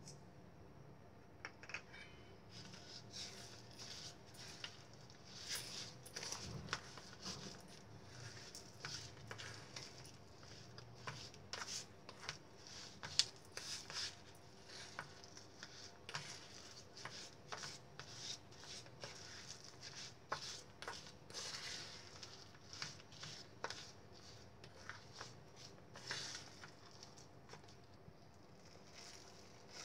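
Silicone spatula stirring and scraping grated cassava around a stainless steel bowl: faint, irregular scrapes and taps against the metal.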